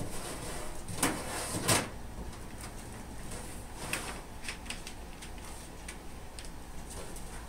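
Knocks and clicks of the vinyl J-channel and network cable being handled and worked into place: two louder knocks about a second apart near the start, then a run of lighter clicks.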